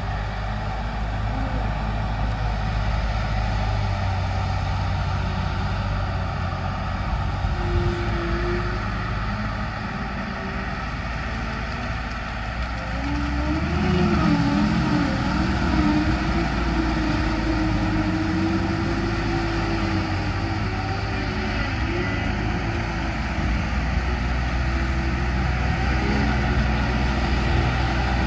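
Engine of a big-tyred amphibious off-road vehicle running under way, a steady low rumble whose pitch wavers up and down for several seconds about halfway through.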